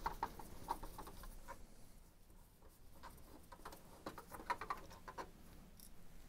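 Faint small clicks and ticks of a screwdriver working a screw out of a Canon G5050 printer's case. They come in two loose clusters, with a quieter gap around two to three seconds in.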